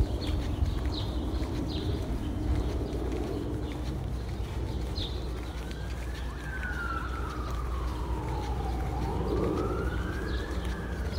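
City street ambience: a steady low rumble of traffic with scattered short high chirps, and an emergency-vehicle siren wailing from about halfway in, one slow fall and rise in pitch.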